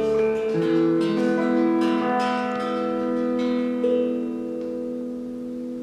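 An electric guitar and a steel hand drum play slow, sustained notes together in a free improvisation. Several notes are struck in the first few seconds and left to ring. The sound gradually fades toward the end.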